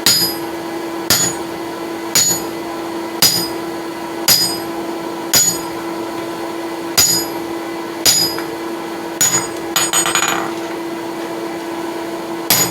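Ten-pound hand hammer striking an H13 steel drift in a hot hammer billet's punched eye, about one blow a second, each with a short bright steel ring. The blows stop for a moment with a brief metallic rattle, then one more blow near the end. A steady hum runs underneath.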